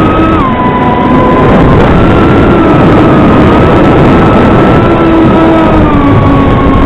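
Motors and propellers of a small 95 mm FPV quad whining under heavy hiss, the pitch stepping down about half a second in, up again just before two seconds, and down near the end as the throttle changes.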